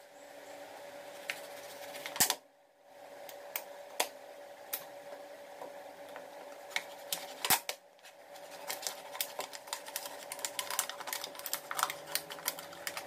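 A knife blade cutting through a thin plastic drinks bottle: irregular crackling clicks of the plastic as the blade works through it, over a faint steady hum, pausing briefly twice.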